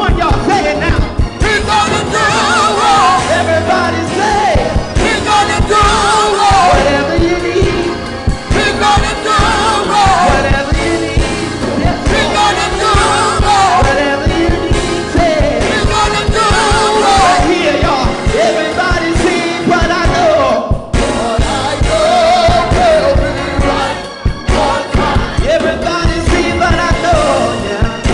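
Gospel choir singing with a live band, drums keeping a steady beat under the voices.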